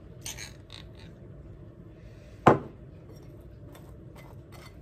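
A knife scrapes in a glass Marmite jar, then there is one sharp knock about halfway through as the glass jar is set down on the worktop. Light scraping strokes of the knife spreading Marmite on a crumpet follow.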